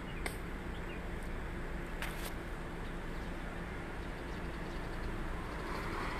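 Steady hum of street traffic, with a car passing close by near the end. Two short clicks, about a quarter second and two seconds in.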